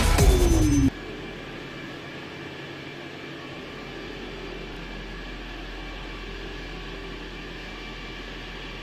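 Electronic music with a heavy beat that cuts off about a second in, leaving a Toyota C-HR's remote-started engine idling steadily.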